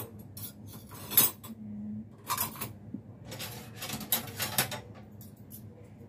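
Metal spoons clinking against each other and the dishwasher's wire rack as they are set in place: a string of sharp clinks, the loudest about a second in and several close together near the middle.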